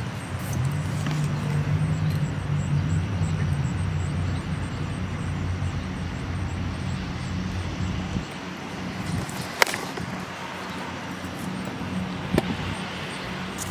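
A steady low engine-like hum over a wash of outdoor noise, with two sharp knocks, one about ten seconds in and one about twelve.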